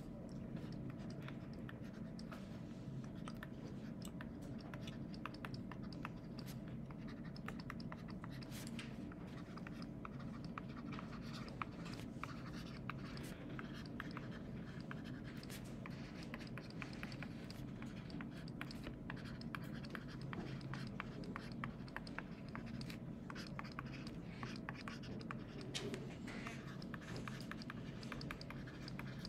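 Stylus writing on a tablet screen: a long run of small scratches and taps as the words are handwritten, over a faint steady hum.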